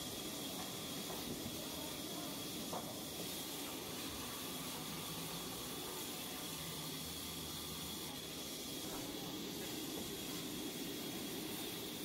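Large vertical band saw running and ripping a thick timber beam lengthwise: a steady hissing cut with a constant high whine.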